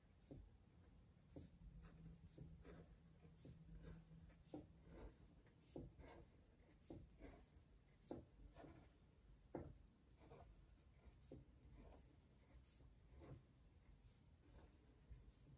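Felt-tip Sharpie marker drawing small polka dots on paper: short, faint scratching strokes, about one to two a second, as each dot is drawn.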